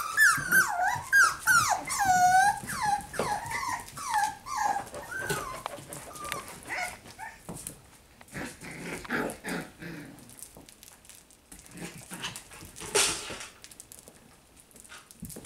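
Puppies whining and yipping in a quick run of high, bending cries for the first few seconds, then fading to the quieter scuffling and rustling of puppies playing with toys.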